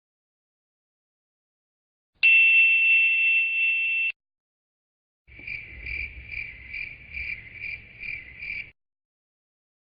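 Insect sound effects: a steady high trill held for about two seconds, then after a short gap a run of about nine evenly spaced chirps, a little under three a second.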